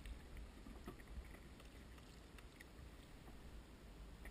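Quiet stand-up rowing of a small wooden Venetian boat: faint water sounds and a few light ticks of the oar working in its forcola, over a steady low rumble.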